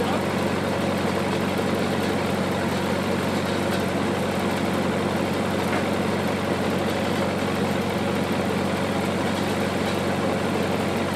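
Generator engine running steadily at a constant speed, a continuous even hum.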